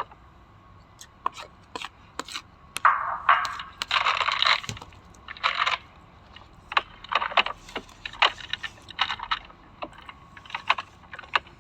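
Packaged snacks being handled and unpacked: scattered light clicks and knocks as items are set down, with a few louder rustling, crinkling stretches of packaging around the middle.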